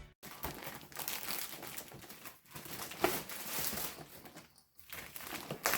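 Packaging being handled, crinkling and rustling in irregular spurts with two short pauses.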